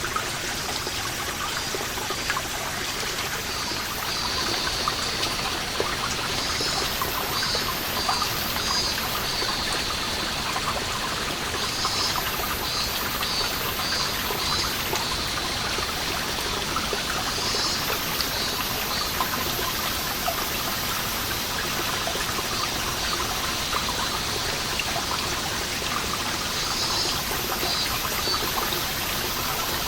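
Water seeping from a moss-covered wall, falling in many small drips over a steady trickle. Cicadas call over it in pulsing bursts that come and go.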